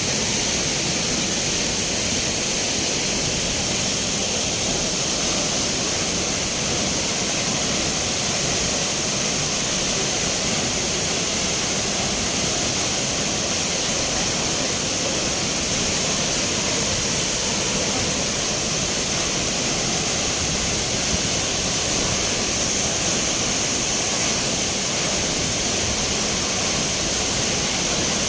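Steady rush of spring water flowing and splashing, an even hiss heavy in the high end with no breaks.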